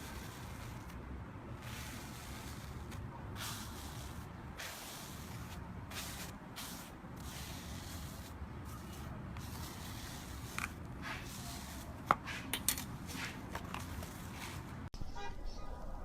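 Slime being handled and pressed: quiet soft squishes and hissy crackles, with a few sharper clicks about twelve seconds in.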